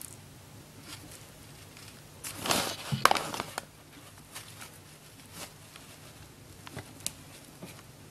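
Hands handling a ball of clay on newspaper: a loud burst of paper rustling with a sharp tap about three seconds in, then a few faint taps and rustles.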